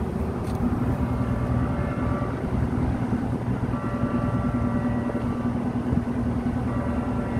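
Steady machinery drone of a cargo ship alongside, with a higher whine that fades in and out several times, heard while its mooring lines are being heaved in.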